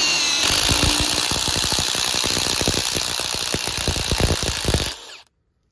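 Milwaukee cordless impact driver driving a swaging bit into the end of a copper refrigerant line, its motor whining over rapid hammering from the impact mechanism as the tube end is expanded. It stops suddenly about five seconds in.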